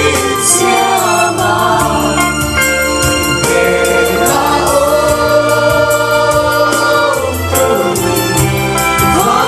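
Worship song: a group of voices singing together in long held notes over sustained instrumental chords and a steady bass.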